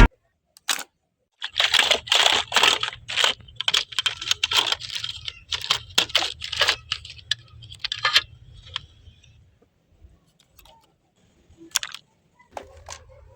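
Workshop handling noises: a dense run of sharp clicks, taps and scrapes over a low hum, thinning out to a few scattered clicks after about nine seconds.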